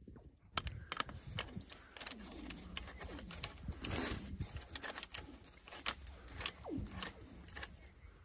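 Metal shovel head being fitted and locked onto the end of a steel rebar rod: scattered sharp metal clicks and handling knocks, with a few falling tones in the background.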